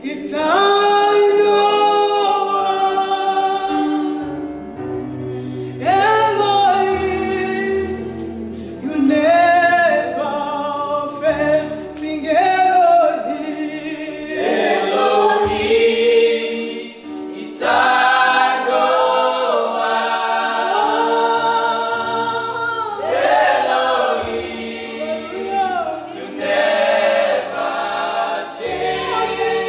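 Gospel praise-and-worship song: a woman leads the singing with a group of backing singers joining in, over electronic keyboard with held low bass notes.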